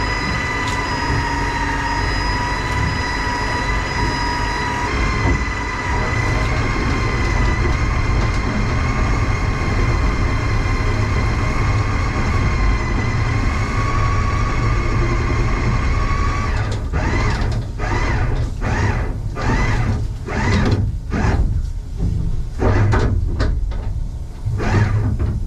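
Boat engine running under way with a strong low rumble and a steady high whine; about two-thirds of the way in, the whine drops away and the sound starts surging and fading over and over, about once a second.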